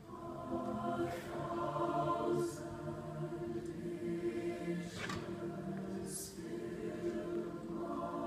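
Large high school mixed choir singing slow, sustained chords. The sound swells in from soft at the start, and a few brief hissing consonants cut through.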